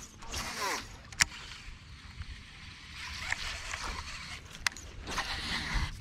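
Rod and baitcasting reel being cast and reeled in from a boat: a hiss of line and reel with two sharp clicks, about a second in and near the end.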